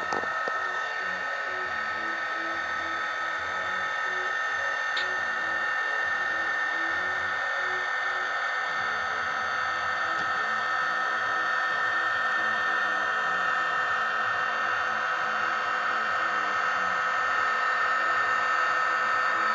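MRC sound decoder in an HO-scale Bachmann SD40-2 model playing a diesel locomotive engine sound through its small speaker: a steady running sound with a high whine and a faint even throb underneath, slowly getting louder.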